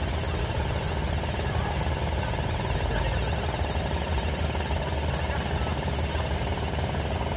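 Engine of a box-girder launcher (bridge-girder erecting machine) running steadily, a low even drone.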